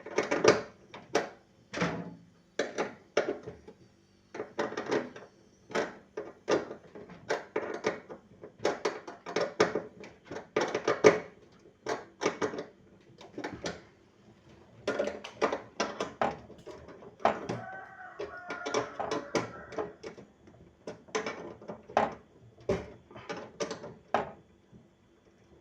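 Irregular knocking and clicking of tools and metal parts being handled during refrigerator evaporator repair, with a brief squeal a little past two-thirds of the way through.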